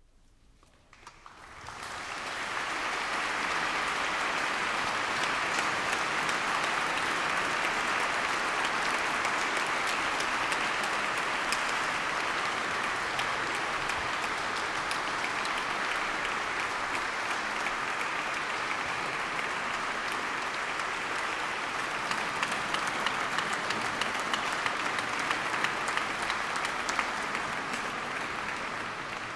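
Concert audience applauding: the clapping starts about a second in out of near silence, swells to a steady dense patter within a couple of seconds, and begins to die away near the end.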